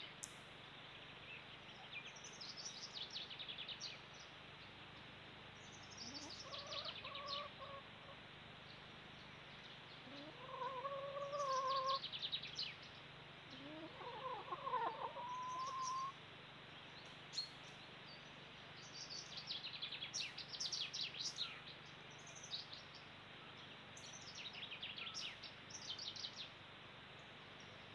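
Small songbirds singing short, high, falling trilled phrases every few seconds. Around the middle come three longer, lower calls from a fowl, the last one rising and then holding.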